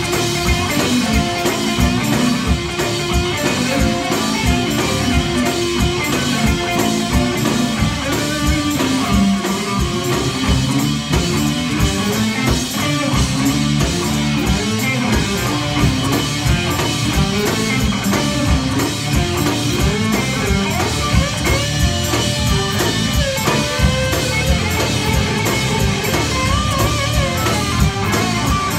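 Live gospel band playing an instrumental groove: electric guitars and bass over a steady drum-kit beat, with keyboard.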